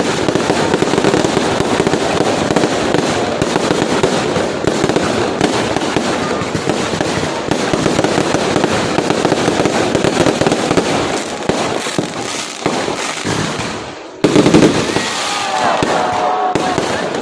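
Fireworks display: a dense, unbroken crackle of rapid pops and bangs, with a sudden louder burst near the end.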